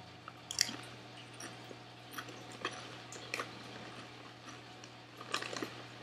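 Chewing a dip-coated Lay's cheddar and sour cream potato chip: a string of short, sharp crunches, the loudest about half a second in and again around five and a half seconds.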